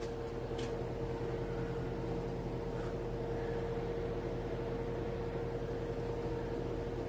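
Steady electric motor hum with a constant mid-pitched whine, the running background of a machine shop. Two faint ticks come about half a second and about three seconds in.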